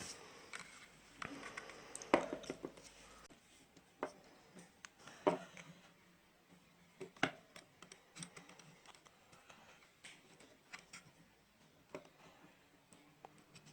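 Scattered light clicks, taps and scrapes of hands handling small plastic speaker parts, a few seconds apart.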